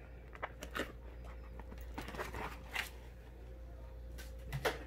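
Small scattered clicks and light rattling of a key ring being worked off the punched hole of a flexible plastic mat, with the plastic sheet rustling; a couple of sharper clicks near the end.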